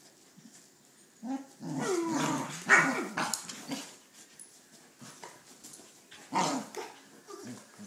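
Two corgis play-fighting, growling and barking in irregular bursts, loudest about three seconds in and again about six seconds in.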